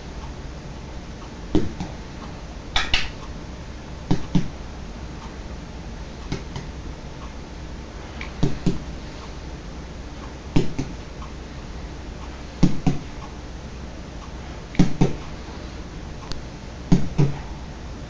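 Short, sharp double clicks, one pair about every two seconds, repeated steadily.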